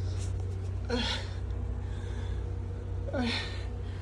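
A person moaning in pain from a hurt leg: two short cries of "ay" that fall in pitch, one about a second in and one near the end, over a steady low hum.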